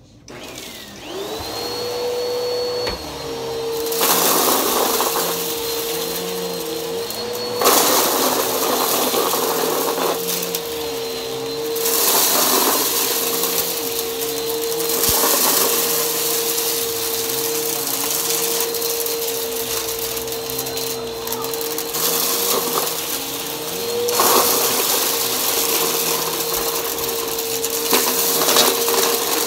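Bagless upright vacuum cleaner switched on: the motor whine rises in pitch about a second in and settles to a steady tone. It then runs with a rushing airflow sound that grows louder and rougher in stretches as it is pushed back and forth over carpet.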